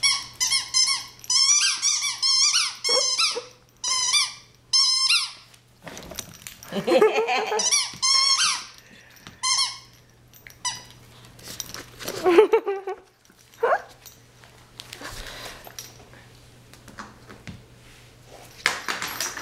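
Squeaky red dog toy squeaking over and over: fast runs of short, high squeaks for the first five seconds or so, then scattered squeaks with pauses between them.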